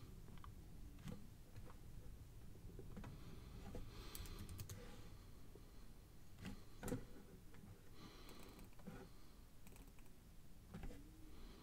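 Faint clicking and tapping on a computer keyboard and mouse, in short clusters every few seconds, while the software is being worked.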